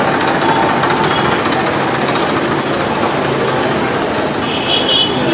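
Busy street traffic: the engines of motorbikes, scooters, auto-rickshaws and a tractor run together in a steady, loud din. A brief high-pitched toot comes near the end.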